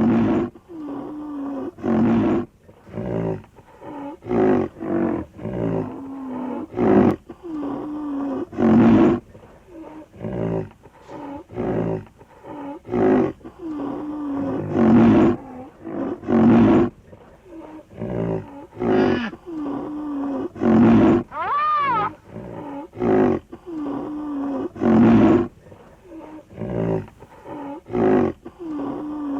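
Rhinoceros calling over and over: loud, deep calls every second or two, with lower pitched moans between them, and one higher call that rises and falls about three quarters of the way through.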